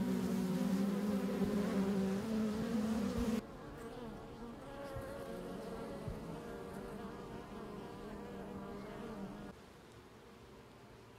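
Honey bees buzzing: a dense, loud hum that drops suddenly to a quieter buzz a little over three seconds in, and falls quieter again near the end.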